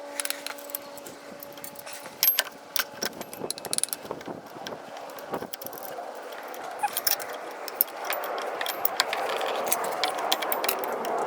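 Metal clicking and clinking of drum-brake hardware being worked by hand, as the shoe hold-down springs and brake shoe parts are taken off. A rougher scraping noise builds over the last few seconds.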